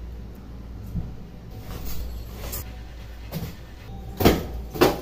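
Soft-bristled hand broom swishing across fabric upholstery in several quick strokes, the two loudest and sharpest near the end.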